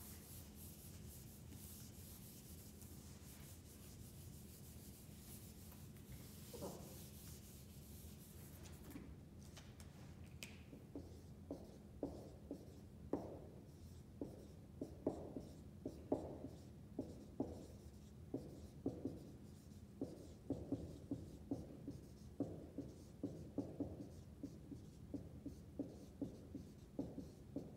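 A whiteboard eraser rubbing across the board for the first several seconds. Then a dry-erase marker writes on the whiteboard, a quick irregular run of short strokes as each letter is drawn, starting about eleven seconds in.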